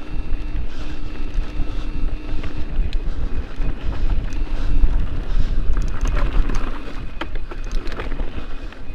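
Wind buffeting the microphone of a handlebar-mounted camera on a mountain bike riding down a dirt singletrack, under tyre noise and rattling from the bike. Sharp clicks and clatters over the rough trail grow thicker about six to eight seconds in.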